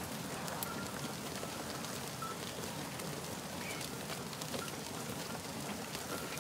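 A large herd of goats moving past: a steady rustle of many hooves on dry ground, with many small clicks.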